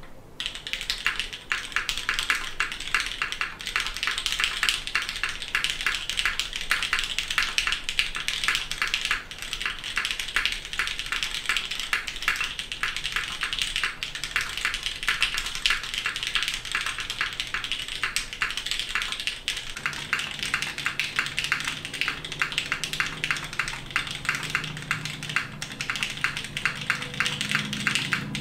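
Steady fast typing on a custom mechanical keyboard: SP Star Meteor White switches lubed with 205g0, on an aluminium plate in a DN DM case with a polycarbonate bottom, under DCS keycaps. The keystrokes come as a dense, continuous run of clicks.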